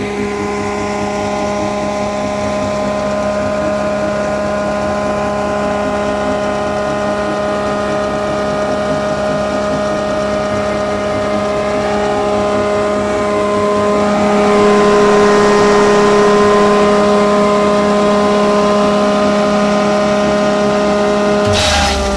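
Tractor-driven farm waste pulverizer and the Farmtrac 6050 tractor's diesel engine running steadily under load with a constant hum and whine, shredding branches and leaves fed into the hopper. It grows a little louder partway through.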